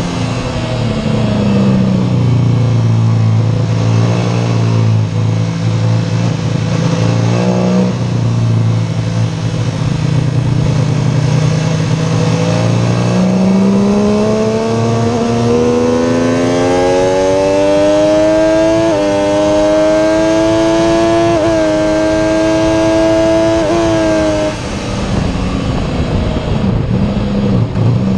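MV Agusta F3 675 three-cylinder engine heard onboard with wind rush. The revs fall as the bike slows into a long corner and stay low and steady through it. The engine then pulls with rising revs and two upshifts about two-thirds of the way through, and the throttle shuts near the end.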